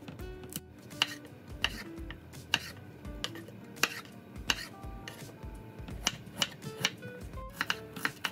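Kitchen knife cutting red onion and tomato on a wooden cutting board: sharp knocks of the blade meeting the board, about one every half second to second, over soft background music.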